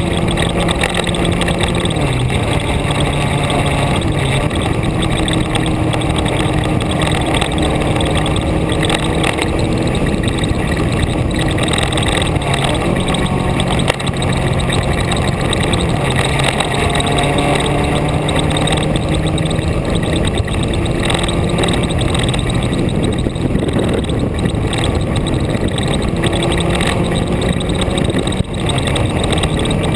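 A vehicle's engine running under way, its pitch rising and falling and stepping down a few times, with short dips in level about halfway through and near the end, over a steady rush of wind and road noise.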